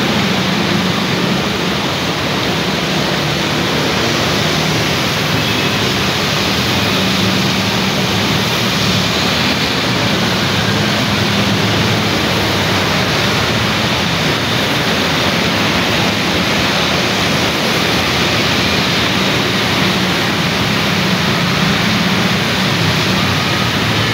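Steady rain hiss with motorcycles and cars passing on the wet road, their engines a low hum beneath the rain.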